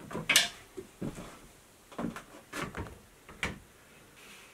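A 3D-printed ABS plastic part being handled and set down on a desk: about five separate hard clacks and knocks, the loudest just after the start.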